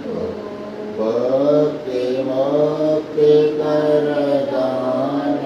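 Devotional mantra chanting, the voice holding long, drawn-out notes that bend gently in pitch.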